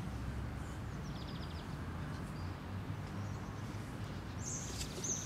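Outdoor ambience of small birds chirping over a low steady rumble, with a quick high trill about a second in and a few high chirps near the end.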